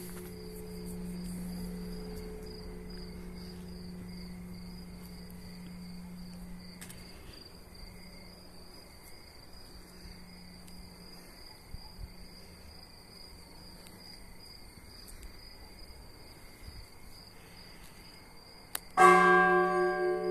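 A large bell's low hum slowly dies away. About a second before the end the bell is struck again once, loudly, ringing with many overtones. Insects chirr steadily and high-pitched throughout.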